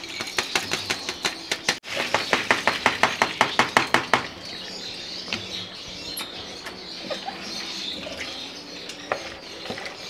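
Small caged parrots chirping in a fast, even run of about five calls a second for roughly four seconds, then only a few scattered calls.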